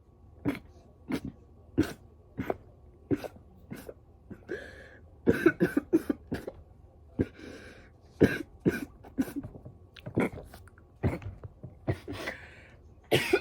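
A woman coughing hard, over and over, after a hit from a delta-8 vape pen: single sharp coughs about every half second at first, then tighter runs of coughs later on.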